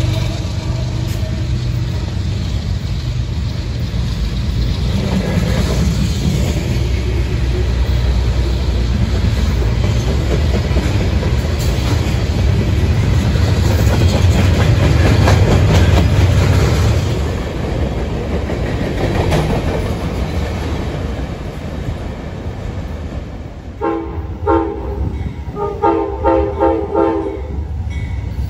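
A train rolling past, with a loud rumble and wheels clicking over the rail joints, loudest in the middle. Near the end its horn sounds in several short blasts.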